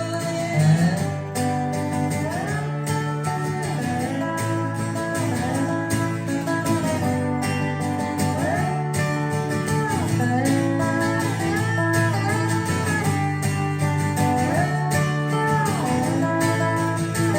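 Live country-rock band playing an instrumental break: a lead guitar solo with notes that slide and bend between held pitches, over steady bass and rhythm guitar.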